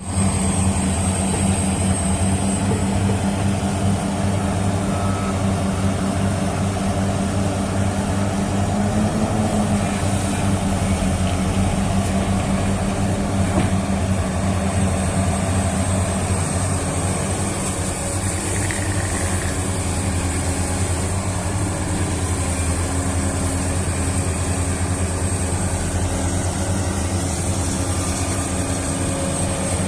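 Heavy diesel earthmoving machinery, a large hydraulic excavator and an articulated dump truck, running steadily with a constant low engine drone and a thin high whine above it.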